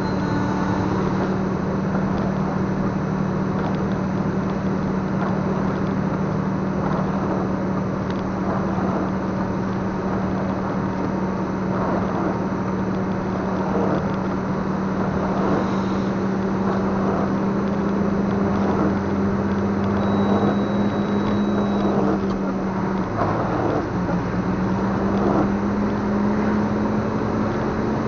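A vehicle's engine running at a steady drone under road and tyre noise, heard from inside the cabin while driving. About three quarters of the way through, the engine note dips briefly and comes back a little higher.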